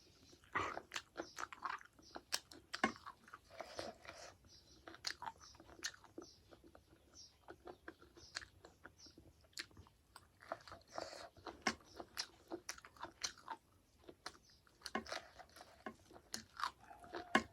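Close-miked chewing and biting of a meal of rice, buffalo-meat gravy and pickles, with many irregular wet mouth clicks and crunches.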